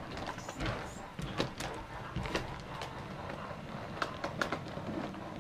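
HO-scale model train rolling along the track, heard from a camera on the lead flatcar: a steady low running noise with irregular sharp clicks as the small wheels cross rail joints and turnouts.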